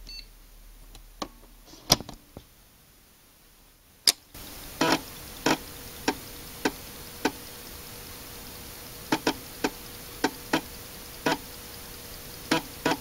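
Conventional 3.5-inch floppy disk drive working with a 1.44 MB disk. A few clicks and a sharp clack come in the first four seconds. Then the drive runs with a faint steady hum while its read/write head steps in single sharp clicks, at first about every half-second, then in quicker runs near the end.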